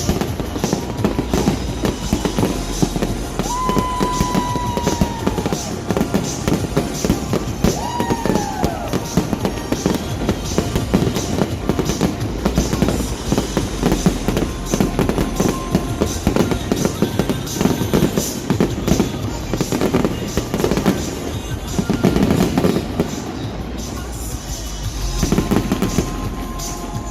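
Fireworks going off in rapid succession: a dense barrage of pops, crackles and bangs. Two whistling tones rise over it, the second falling in pitch.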